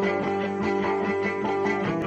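Background music led by guitar, with plucked notes in a steady rhythm.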